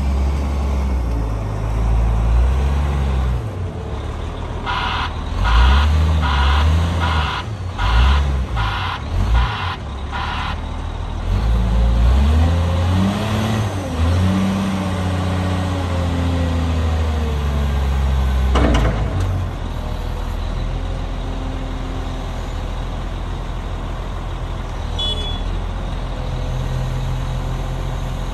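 Caterpillar 966H wheel loader's six-cylinder diesel engine revving up and down as the machine manoeuvres, with its reversing alarm beeping about twice a second from about five to ten seconds in. A brief sharp hiss sounds about two-thirds of the way through, after which the engine settles to a steady idle.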